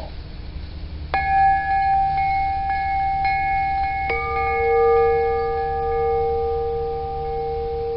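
Bells made from cut-down metal cylinders, struck with a baseball. One is hit about a second in and rings with a clear, long-sustaining tone and several overtones. A second, lower-pitched bell is hit about four seconds in and rings on together with the first.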